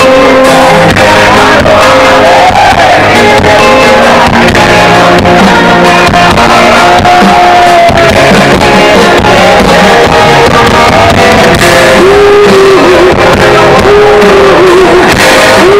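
Live rock band over a loud PA: a male singer with electric guitar, bass and drums keeping a steady beat. A long wavering note is held near the end.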